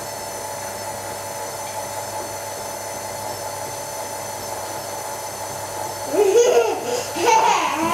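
Electric tilt-head stand mixer running at a steady speed, its motor giving a steady whine as it mixes flour into a butter, sugar and egg-yolk biscuit dough. A young child laughs and babbles near the end.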